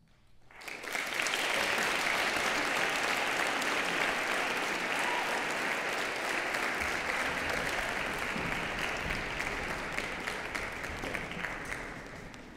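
Audience applauding: the clapping breaks out about half a second in, builds within a second, holds steady, and dies down near the end.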